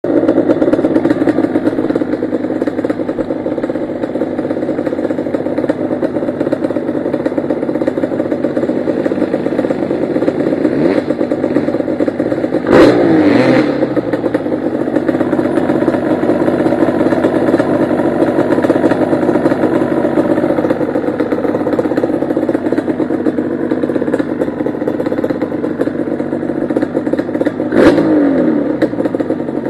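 Yamaha Banshee ATV's twin-cylinder two-stroke engine running steadily on a dirt trail ride. A sharp, loud burst with the pitch falling after it comes about 13 seconds in and again near the end.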